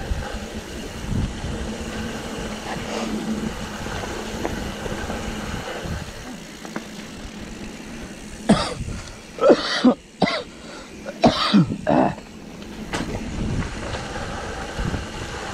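Steady rumble of wind and trail noise from a mountain-bike ride, with several short, loud bursts from a person's voice, coughs or grunts, bunched together about halfway through.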